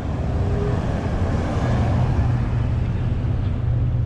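Road traffic: a car driving past close by, over a steady low hum of engines.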